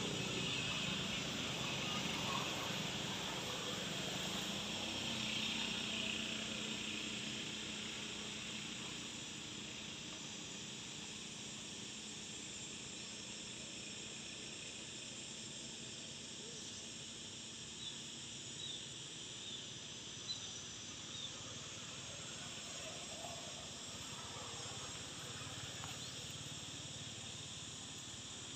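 Steady high-pitched insect buzzing, loudest in the first few seconds and easing off after, with a few soft clicks about two-thirds of the way through.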